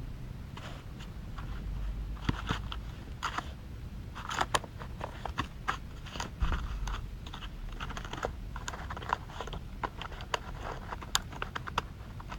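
A dog scuffling in sand, making irregular crunching and scratching sounds with many short sharp clicks, over a low steady rumble.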